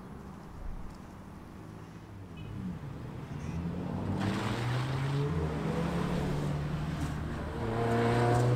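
Airbus A320neo jet engines spooling up for takeoff. Rising engine tones come in about two and a half seconds in, with a roar that builds steadily and is loudest near the end.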